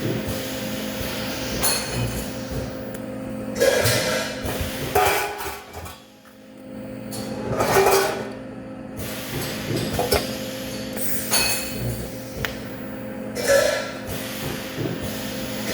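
Metal knocking and clanking: several irregular, sharp strikes with a short ring, over a steady machine hum in a metalworking shop.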